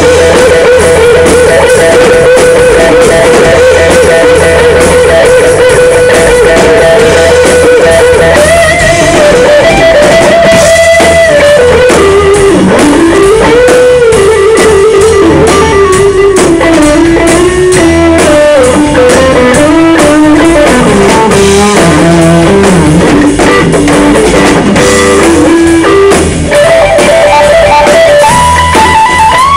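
Live rock trio of electric guitar, bass and drum kit playing loud. The guitar holds one long sustained note for about eight seconds, then plays a solo line that bends and wanders in pitch over the bass and drums.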